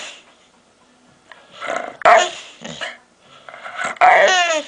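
A dog making odd vocal noises: two calls about two seconds apart, each a raspy lead-in followed by a loud yowl that falls in pitch.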